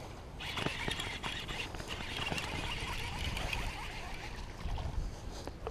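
A fishing reel being cranked as a hooked bass is brought in and handled: a steady hiss with small clicks over the first three seconds or so, with wind rumbling on the microphone throughout.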